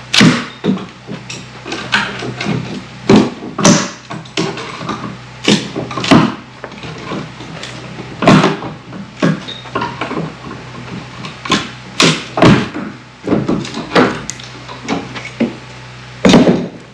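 Hammer and pry bar working a nailed-down wooden threshold board loose: irregular sharp knocks and blows on wood, roughly one a second.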